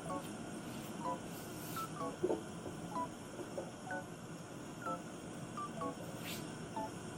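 Soft background music: a slow melody of short, clear high notes at changing pitches, about one or two notes a second, over a low steady hiss.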